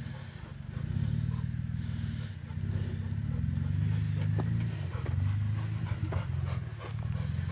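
Jeep engine running low and steady in a low-speed crawl down a rocky trail, with scattered sharp clicks and knocks on the rocks.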